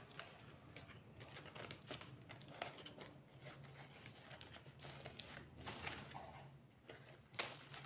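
Dry banana-fiber strips rustling and crackling faintly as hands weave them over and under, with a sharper crackle near the end.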